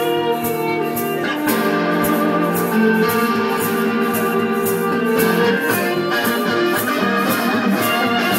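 A street band playing live: held chords and melody notes over a steady percussion beat.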